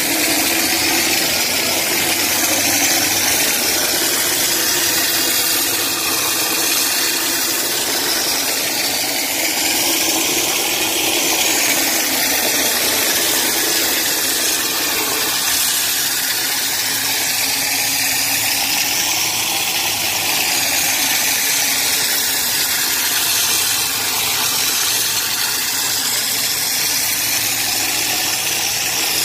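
Refractory gunning nozzle spraying mix onto a brick ladle lining with compressed air: a steady, unbroken hiss of air and material, with a machine running underneath.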